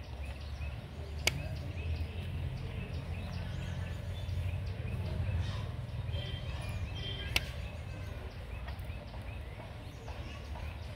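Metal puller being handled and its bolt turned on a rice transplanter crank: two sharp clicks, one about a second in and one about seven seconds in, over a low rumble with faint bird chirps.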